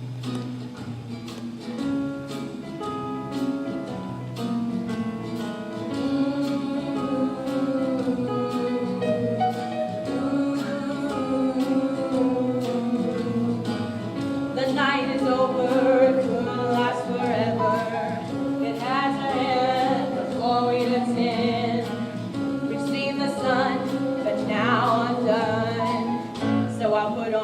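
A song: singing with instrumental accompaniment over a steady beat, the voice growing stronger from about halfway through.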